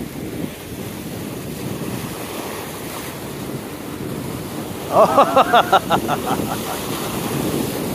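Wind buffeting the microphone over waves washing against the jetty rocks. About five seconds in comes a short run of rapid, high-pitched vocal sounds, the loudest thing here.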